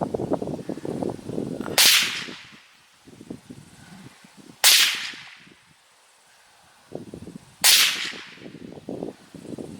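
Three single gunshots about three seconds apart, each a sharp crack that fades quickly, fired at a paper target.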